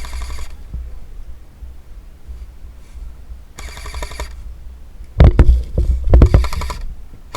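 Short bursts of fully automatic airsoft gun fire, each a rapid even rattle under a second long: three bursts, at the start, about three and a half seconds in, and about six seconds in. Heavy low thumps on the microphone come just before and during the last burst and are the loudest sound.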